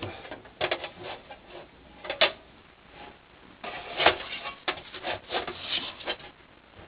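Heater core and fittings being handled and fitted together by hand: irregular clicks and knocks of parts against each other, the loudest about two seconds and four seconds in.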